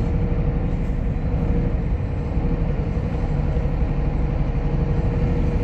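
Heavy truck's diesel engine running steadily, a low drone heard from inside the cab.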